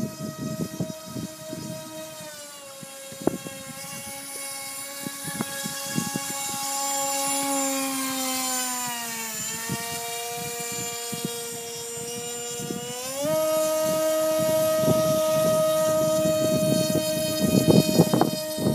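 Electric motor and propeller of a Bixler RC plane whining steadily, its pitch sinking slowly through the middle and then climbing quickly back up about two-thirds of the way through. Wind buffets the microphone throughout, most strongly near the end.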